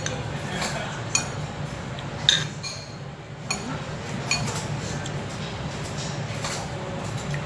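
Eating utensils clinking against plates and bowls: a handful of separate light taps with a short ring, over a steady low background hum.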